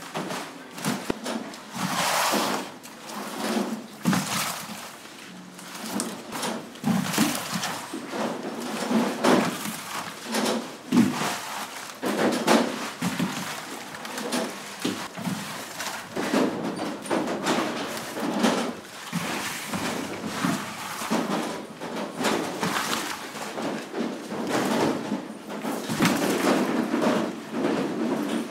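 Green coconuts knocking and thudding against one another as they are handled, unloaded and pulled by hand from a heap, in an irregular run of knocks.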